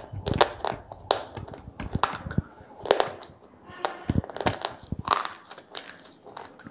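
Crunching and chewing of square pieces of edible slate, with sharp, irregular crunches several times a second.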